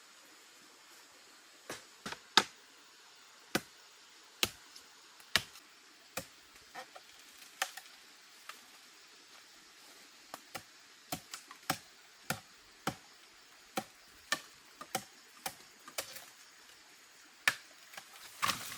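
A run of sharp, irregular clicks and snaps, about thirty of them over a faint hiss, the loudest about two and a half seconds in.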